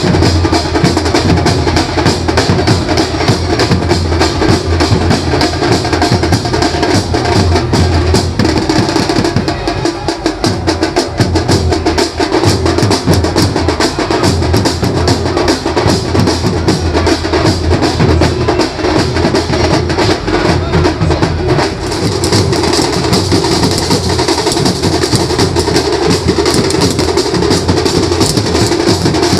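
Maharashtrian banjo party band playing loud, continuous procession music driven by dense, fast drumming.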